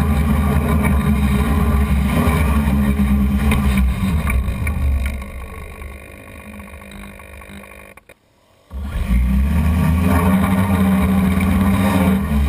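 Hexacopter's six brushless motors with 12-inch propellers running steadily, then spooling down with falling pitch as it settles into the grass about five seconds in. After a brief silence the motors are suddenly running steadily again.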